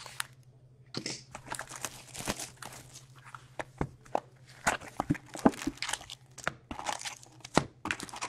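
A cardboard trading-card box being opened by hand and its foil card packs pulled out and stacked. It is heard as irregular crinkling, tearing rustles and light clicks.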